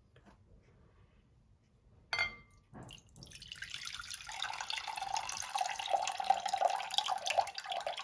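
Two short knocks, then from about three seconds in fermented apple juice poured in a stream from a bowl into a glass salad bowl, splashing steadily and growing louder as the bowl fills.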